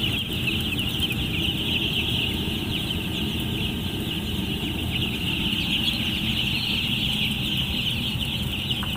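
A large flock of broiler chicks peeping without pause, a dense chorus of high chirps, over a steady low rumble.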